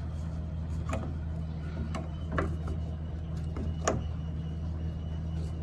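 About five light hammer taps, spaced unevenly, the last of them the sharpest, over a steady low hum.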